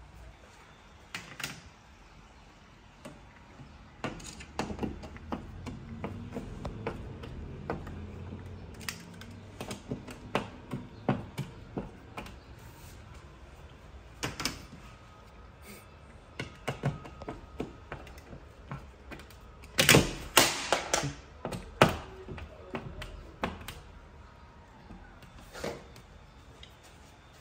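Irregular clicks and knocks of hard objects being handled, with a cluster of louder knocks about twenty seconds in.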